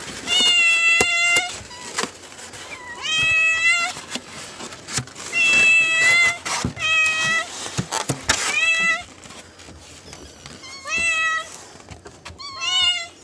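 Hungry domestic cats meowing over and over, begging for food: about seven drawn-out meows, each about a second long, with short gaps between.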